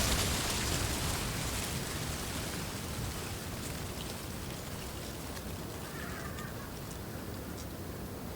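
Wind blowing through reeds: a steady rustling hiss that eases a little over the first few seconds, with a low rumble of wind on the microphone at the start.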